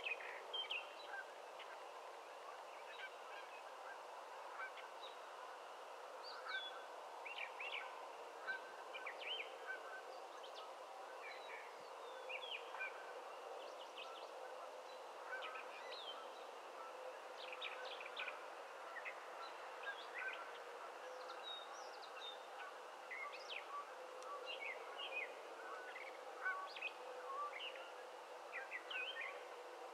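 An outdoor chorus of many short, high chirping calls, overlapping without a break, over a steady distant background din.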